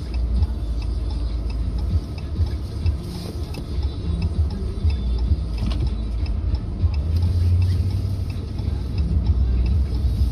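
Steady low rumble of a car driving, heard from inside the cabin: engine and tyre noise on a cracked, patched road, with an occasional light knock.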